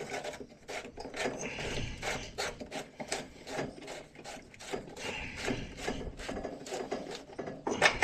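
Hands working the boiler's condensate neutralizer and its plastic drain fittings into place: repeated rubbing and scraping with many small clicks.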